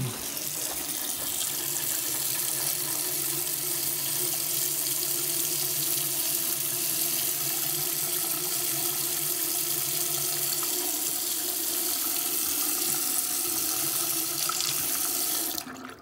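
Bathroom sink faucet running in a steady stream into the basin and drain, left open to vent the system while the water heater refills. The flow cuts off just before the end.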